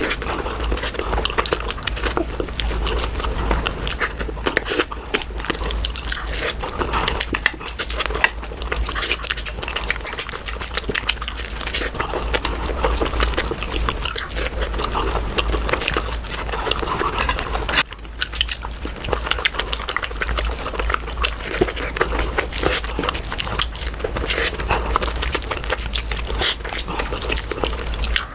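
Close-miked chewing and wet mouth smacking of someone eating, a dense, unbroken stream of small clicks and squelches.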